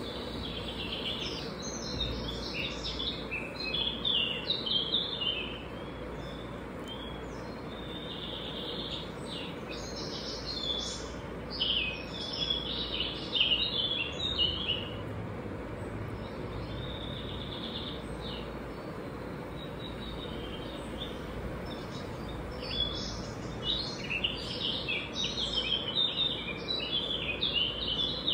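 Small birds chirping in rapid runs of short high notes, in three spells of song with pauses between them, over steady background noise with a faint hum.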